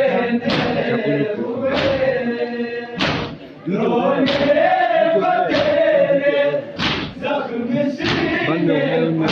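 A large group of men chanting a Muharram noha in unison, with the whole crowd striking their chests together in matam about every 1.3 seconds, seven strikes in all.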